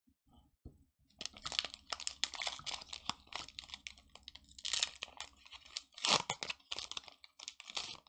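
Foil wrapper of a Pokémon trading card booster pack crinkling and tearing as it is opened by hand: a dense run of crackles from about a second in, with two louder rips in the second half.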